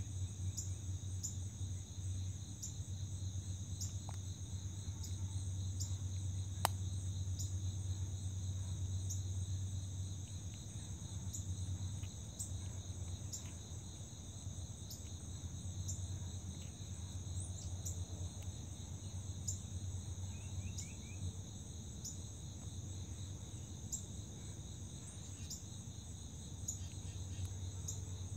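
Chorus of crickets trilling steadily at a high pitch, with a low steady hum beneath. A single sharp click stands out about six and a half seconds in.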